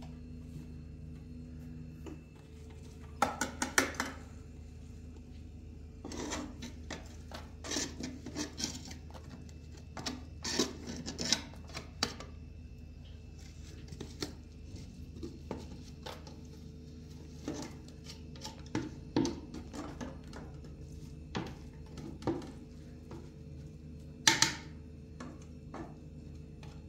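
Irregular knocks, clinks and rubbing of kitchen utensils and dishes in scattered clusters, loudest about three seconds in and again near the end, over a steady low hum.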